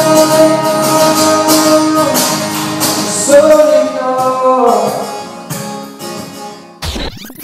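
A male singer accompanying himself on guitar, holding long sung notes as the song winds down and grows quieter. The sound breaks off abruptly about seven seconds in.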